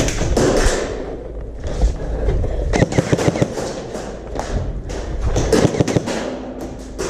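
Three clusters of sharp clicks and thuds: one right at the start, one near the middle and one about three quarters of the way through.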